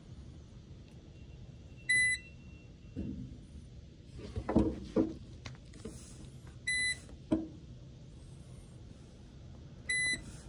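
Speed Queen commercial washer control panel beeping three times, short identical electronic beeps about two seconds in, near seven seconds and near the end, as its buttons are pressed to enter programming mode. In the middle come a few dull knocks, the loudest sound.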